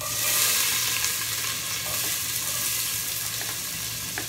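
Chopped onion hitting hot cooking oil in a stainless steel pot and sizzling at once, a steady frying hiss that shows the oil is hot enough to sauté. A light tap of the utensil comes near the end.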